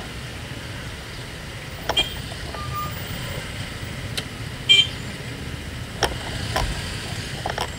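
Street traffic noise: a steady low rumble of road vehicles, with a short high-pitched toot about two-thirds of the way in and a few faint knocks.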